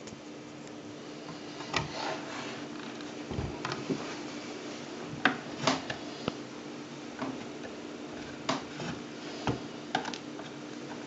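Plastic housing of a Sodrtek FX50 fume extractor being handled and tilted on its wire stand: scattered clicks and knocks, over a steady low hum.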